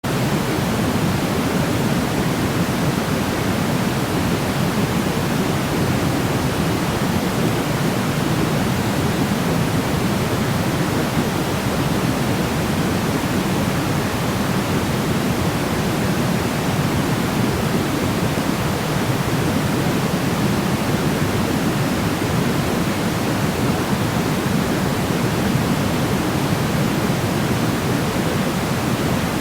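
Steady noise played for sleep: an even, unbroken rushing hiss, fuller in the low range than in the high, with no change in level.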